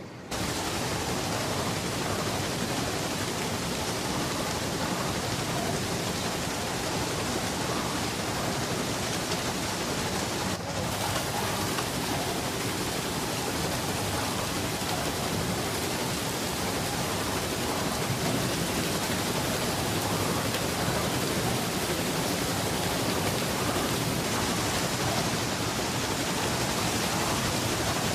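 Water wheel: a steady rush of water pouring and splashing over the wheel.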